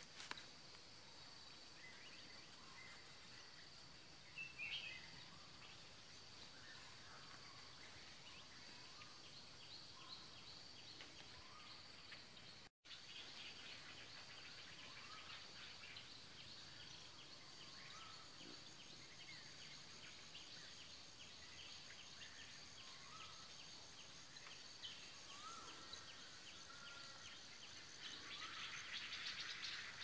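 Faint natural ambience: insects droning steadily at a high pitch, with scattered short bird chirps. The sound drops out for a moment about thirteen seconds in, and a louder insect buzz swells near the end.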